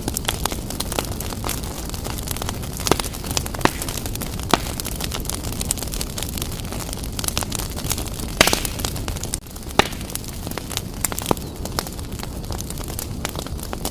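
Wood fire blazing in a fireplace: a steady low rumble of flames with irregular sharp crackles and pops, the loudest pop about eight seconds in.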